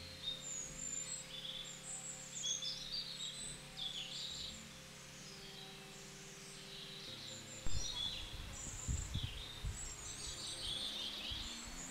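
Small songbirds chirping and singing in a pine forest, a run of quick high twittering phrases one after another. A few low muffled thumps come in about two-thirds of the way through.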